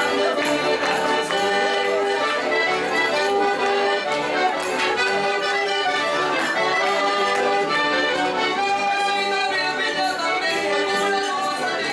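Piano accordion playing a traditional folk tune, joined by a second accordion.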